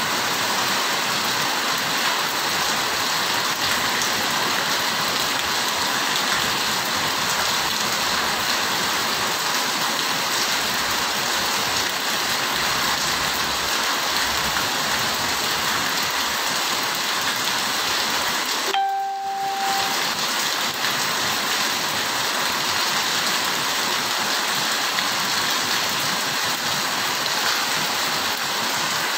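Heavy rain falling steadily on paving and roofs, an even hiss. About two-thirds through, the sound drops out for about a second with a short tone.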